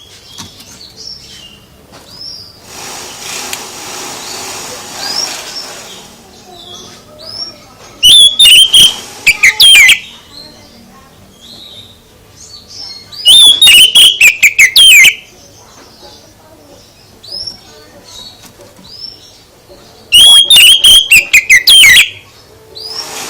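Bird song: three loud bursts of rapid trilling, warbling notes, each lasting about two seconds and coming roughly five to seven seconds apart, with fainter scattered chirps in between.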